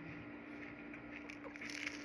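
Close-miked chewing of pizza toast: faint wet mouth clicks and crunches, a little cluster of them near the end, over a steady low hum.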